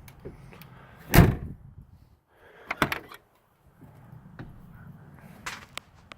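A 1989 Jeep Grand Wagoneer's car door shutting with one thud about a second in, followed by a quick cluster of sharp clicks near the middle and another click near the end.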